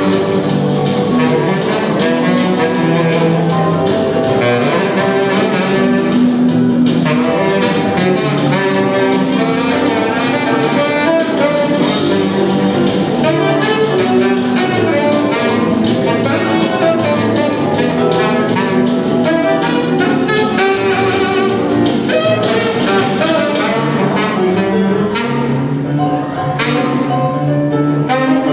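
Saxophone playing a fast jazz blues line of many short notes over band accompaniment with sustained low bass notes, heard live.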